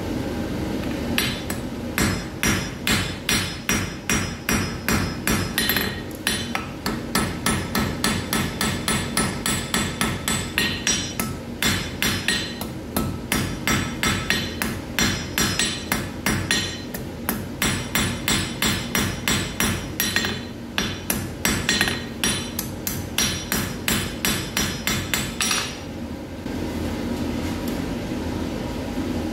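Hand hammer forging a red-hot iron bar on an anvil: rapid blows, about three or four a second, each with a bright metallic ring. The blows come in runs with short pauses and stop near the end.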